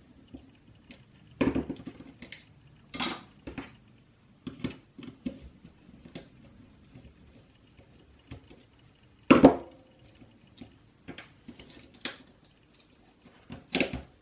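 The plastic shell and parts of an opened ball mouse being handled on a work surface: scattered clicks and knocks, the loudest about a second and a half in and again about nine seconds in.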